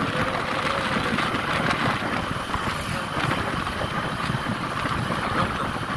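Motorcycle riding along a paved road: steady engine and road noise, with wind buffeting the microphone.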